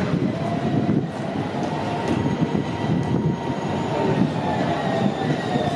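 AnsaldoBreda Sirio tram approaching on street track: a steady rumble of wheels on the rails, with a faint whine that rises and falls.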